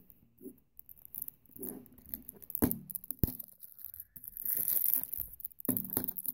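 Hands fumbling with a shrink-wrapped plastic Blu-ray case, trying to get it open: plastic crinkling and rustling, with two sharp clicks from the case between about two and a half and three seconds in, and a longer rustle a little after four seconds.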